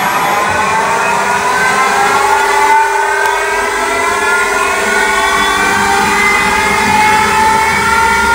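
A CNC machining centre's motors whining steadily, the whine slowly rising in pitch, over a constant lower hum.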